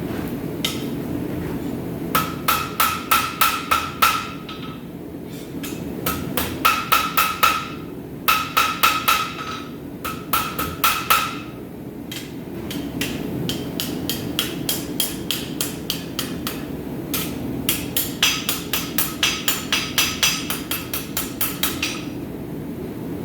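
Rounding hammer striking hot steel on an anvil in quick runs of blows, each run a few seconds long with the anvil ringing, the last and longest run faster and lighter, while shaping the rounded point of a forged heart. A steady roar runs underneath.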